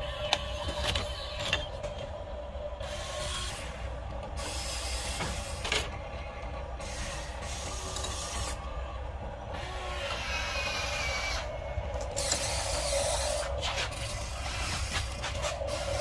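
The electric motors of a Huina RC excavator whirr in stop-start spells of a second or two as its boom, arm and bucket move. A few sharp clicks and knocks come in between.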